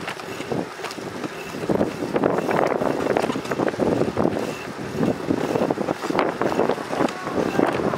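Wind buffeting the microphone of a camera riding on a moving bicycle: a rushing noise that swells and drops in gusts, louder from about two seconds in.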